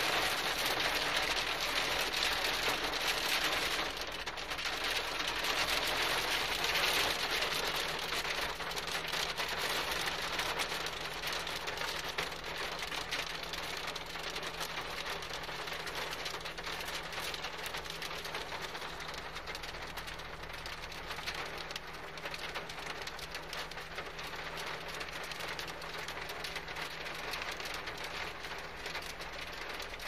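A hailstorm pelting a car's roof and windows, heard from inside the car: a dense patter of small ticks, heaviest for the first several seconds and easing a little after.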